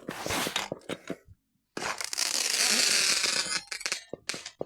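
A firework going off: sharp crackles, then a loud hiss lasting about two seconds that fades into more scattered crackles.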